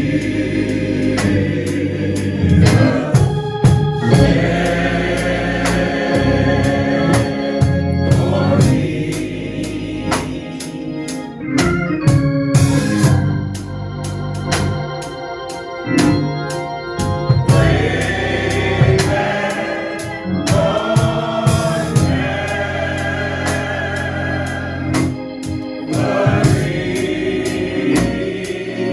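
Gospel song with a choir singing over organ accompaniment.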